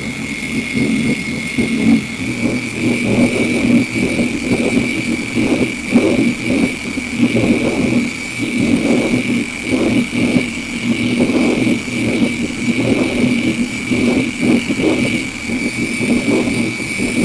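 Electric car polishing machine running under load, driving a polishing pad with one-step polishing paste across sanded paint on the first pass to cut out P2500 sanding scratches. A steady high whine over a low, uneven rumble that swells and dips as the pad is worked over the surface.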